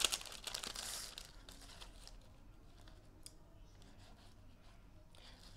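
Kraft paper envelope rustling and crinkling as it is opened and incense sticks are drawn out, for about the first two seconds, with one small click near the middle.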